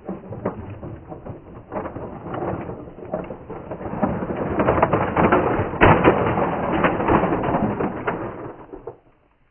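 Bruder plastic toy Scania low-loader truck, loaded with a toy CAT excavator, rolling over sandy gritty ground: a steady crunching and rattling of plastic wheels on grit, louder in the middle. A sharp knock comes about six seconds in, and the noise stops about nine seconds in.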